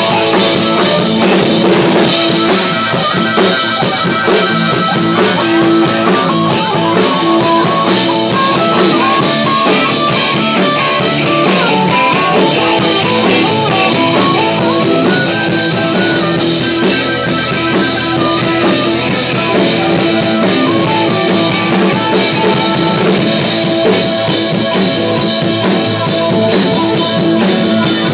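Live rock band playing loudly: electric guitar, bass guitar and drum kit, with a harmonica playing lead lines over them.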